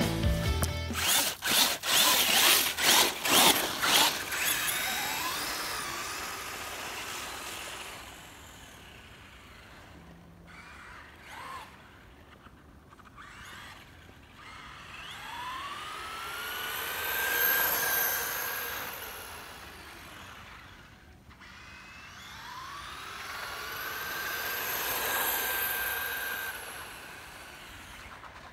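Electric motor of a radio-controlled truck whining as it drives along a paved road, twice. Each time the whine rises in pitch as it speeds up, then holds steady, swelling and fading as the truck comes near and moves away. Before that, the tail of rock music with strummed guitar ends in the first few seconds.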